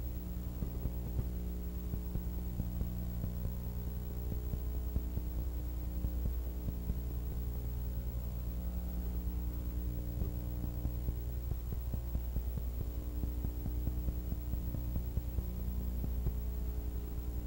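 Steady electrical mains hum with a buzz of even overtones, unchanging throughout. This is the hum of a silent film transfer, not the sound of the motorcycles shown.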